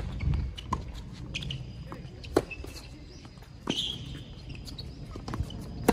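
Tennis rally on a hard court: sharp pops of the ball off racket strings and ball bounces, a second or two apart, with the loudest hits about two and a half seconds in and at the very end. A short high squeak comes about four seconds in.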